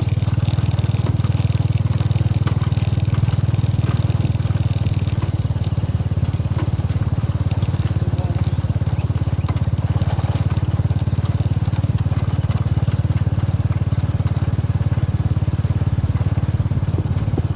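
A steady low rumble of a running vehicle, unchanged throughout.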